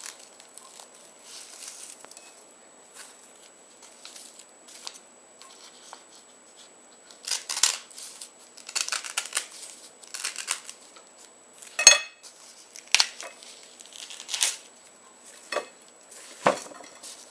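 Knife cutting the ends off an ear of corn in its husk: the husk crunches and crackles in short bursts, with a sharp knock about twelve seconds in.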